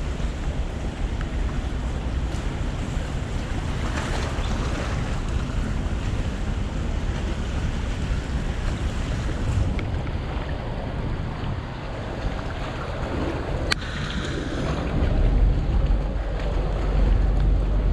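Wind buffeting the microphone over the wash of water at the shore, gusting stronger near the end.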